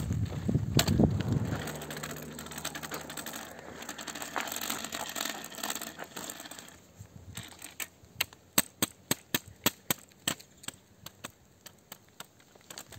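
Wind buffeting the microphone at first, then a quick run of sharp taps, about four a second, in the second half: the tip of a trekking pole tapping the asphalt next to a snake lying on the road, to see whether it is alive.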